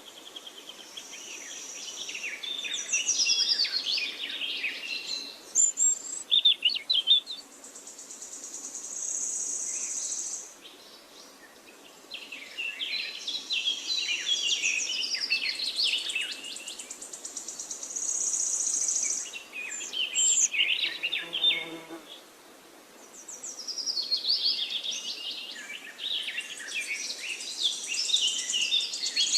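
Forest songbirds singing: intricate chirping phrases come back every six to eight seconds, alternating with a high, thin, buzzing trill held for a few seconds at a time, over a faint steady rush of a river.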